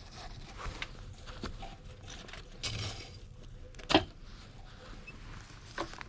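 Light clatter of handling, with one sharp knock about four seconds in and a fainter knock near the end.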